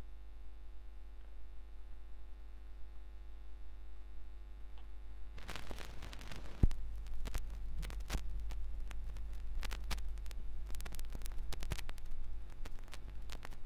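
Steady mains hum from a turntable playback chain, then from about five seconds in the crackle and clicks of a vinyl record's groove under the stylus before the song begins, with one sharp, loud click about a second after the crackle starts.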